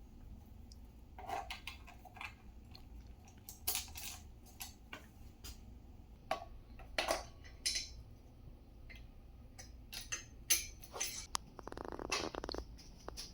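Metal cart parts and hand tools being handled during assembly: scattered clinks and knocks, with a quick run of rapid clicks about twelve seconds in.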